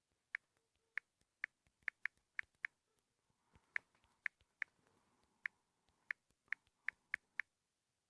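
Typing on a phone's on-screen keyboard: about sixteen short, sharp key-tap clicks at an uneven pace, in two runs with a short pause between them.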